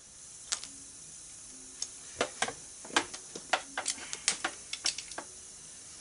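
Sharp, irregular metal clicks and taps of a valve-core tool and threaded air chuck worked at an ATV tire's Schrader valve stem, over a faint steady hiss of air leaking from the tire.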